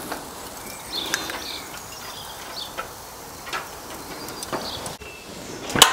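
Onions sizzling gently in oil in a cast-iron skillet, with light scrapes and clinks as crushed garlic is scraped from a small metal dish into the pan, and one sharp clink near the end.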